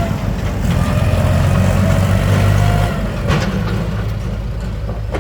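Heavy diesel engine running hard under load, then easing off a little about three seconds in.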